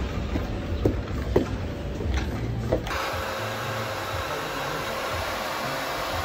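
A few light taps over a low rumble. About three seconds in, a handheld hair dryer starts blowing steadily with a thin whine as it dries wet hair.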